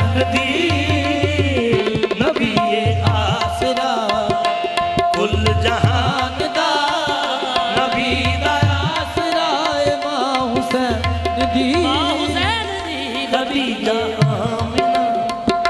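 Live qawwali: a harmonium holding a long steady note while a singer runs wavering melodic lines over it, with hand drums keeping a regular beat underneath.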